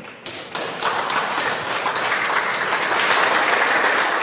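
Applause from legislators in a large chamber. A few scattered claps come first, and within about a second they swell into a steady, loud round of applause.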